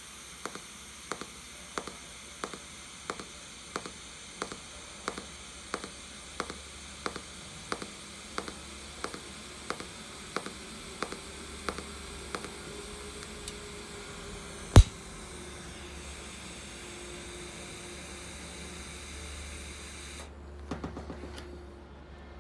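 TIG welding arc running on thin razor-blade steel, autogenous pulse at 1.5 pulses per second: a steady hissing buzz with a high whine, and a click at each pulse about every two-thirds of a second for the first twelve seconds. A single sharp, loud snap comes about fifteen seconds in, and the arc cuts off about twenty seconds in.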